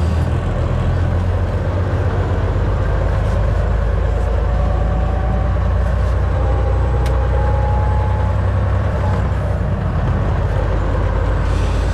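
Semi truck's diesel engine running steadily with road and tyre noise on a snowy road, heard from inside the cab: a strong low rumble, with a faint whine rising slightly in pitch through the middle.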